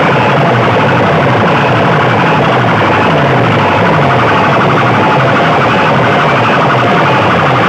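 Stacked horn loudspeakers of DJ sound rigs blasting at full volume, heavily distorted, playing a siren-like effect of low tones that fall over and over.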